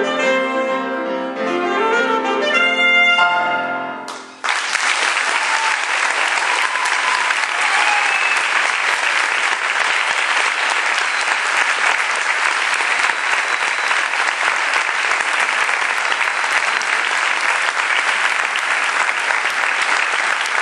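Saxophone and grand piano play the final bars of a piece, ending on a held note that fades about four seconds in. Then an audience breaks into steady applause that lasts the rest of the time.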